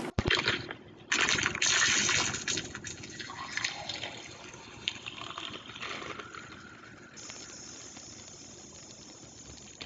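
Sound effects for a states-of-matter animation. Sharp cracks at the start, then loud gushing, splashing water that fades. From about seven seconds in there is a steadier hiss.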